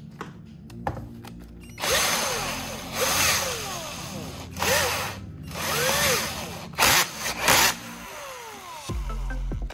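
Hand-held cordless drill run in about six short trigger bursts, its motor pitch rising and falling with each one. The drill is spun as a thin twist bit is fitted into its chuck.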